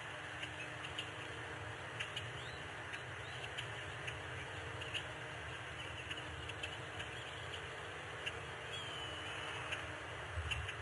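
Steady low outdoor background noise with scattered faint, short bird chirps throughout and one short gliding call about nine seconds in.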